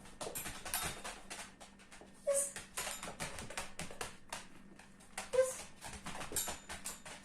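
A dog giving two short high yips, one about two seconds in and one past the five-second mark, amid quick clicking and scuffling sounds.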